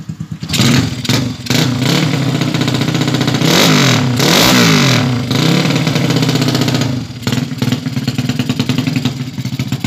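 Honda Absolute Revo single-cylinder four-stroke engine running with no exhaust fitted, firing straight out of the open exhaust port, on a test run after reassembly. It is revved up and back down a few seconds in, then settles to a lower, steadier run about seven seconds in.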